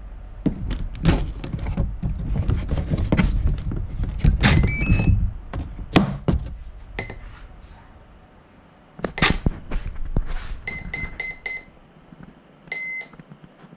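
Handling knocks and thuds as the Mini Talon RC plane is powered up, followed by its electronic speed controller's power-up beeps: a quick rising run of tones about four and a half seconds in, a row of four or five short equal beeps around eleven seconds in, and a single beep near the end, signalling the ESC is ready.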